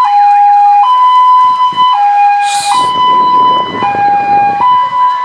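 Electronic siren on an SUV sounding a two-tone hi-lo pattern, swapping between a higher and a lower tone about once a second. A short hiss comes about two and a half seconds in, and a low rumble joins for a second or so as the vehicle goes past.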